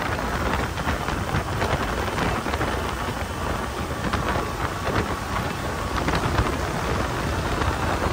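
Steady rush of wind, water and engine noise from a center-console boat underway at speed.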